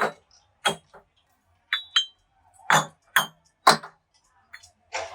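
Metal striking metal: about eight sharp clinks at irregular intervals, some with a short high ringing tone.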